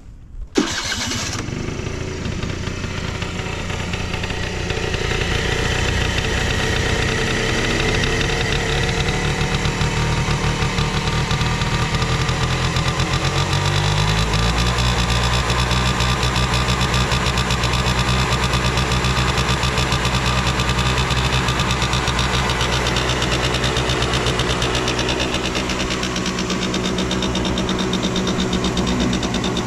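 Suzuki Hi scooter's small two-stroke engine cold-starting about half a second in and catching at once, then running at a fast idle that settles to a lower, steady idle about halfway through. It runs evenly with no abnormal noise.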